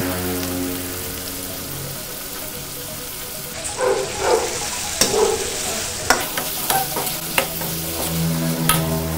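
Duck meat sizzling steadily in a hot wok. From about four seconds in, a metal ladle stirs and scrapes through it, with sharp clicks of the ladle against the wok.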